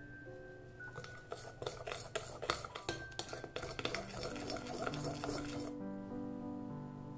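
A utensil stirring or beating in a bowl: rapid clinking of metal on a dish that starts about a second in and stops abruptly near the end. Soft piano music plays underneath.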